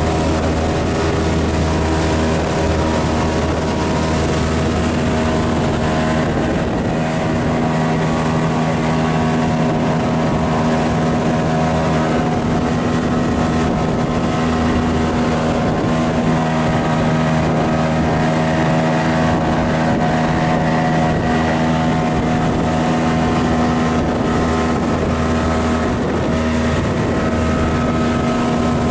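Motorboat engine running steadily under way, with a rush of wind and water over it.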